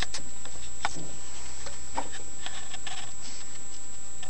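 A few scattered light clicks over a steady hiss and a constant high-pitched whine.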